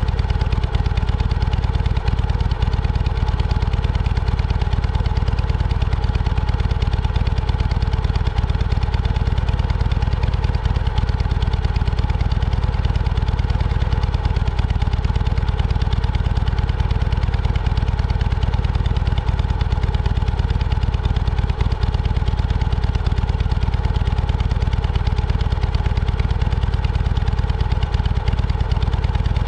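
Vehicle engine running at a steady pace, unchanging throughout, under a heavy low rumble.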